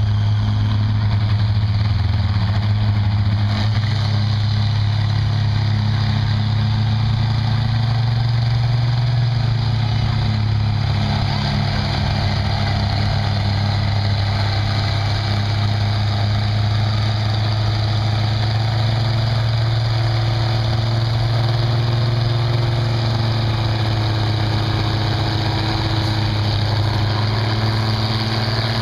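Tractor engine running steadily at high revs while pulling a weight sled: a loud, even, low drone with little change in pitch.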